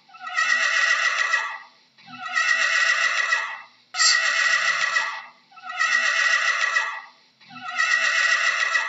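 Horse whinnying again and again, about one whinny every two seconds, five in all. Each whinny falls in pitch toward its end.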